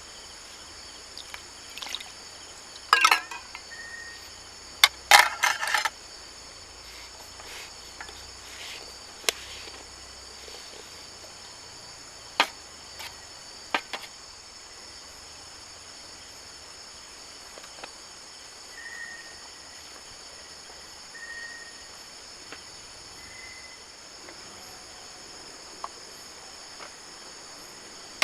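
High, steady chorus of insects such as crickets chirping without a break. Several sharp knocks and a short clatter come in the first half, with single clicks later.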